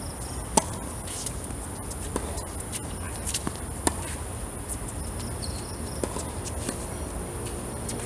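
Tennis ball struck by rackets in a doubles rally: a loud serve hit close by about half a second in, fainter returns from the far court, and another close forehand hit about four seconds in, several sharp pops in all.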